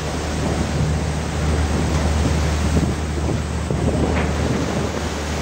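Seawater churning and rushing white along a fishing boat's hull, over the steady low hum of the boat's engine, with wind buffeting the microphone.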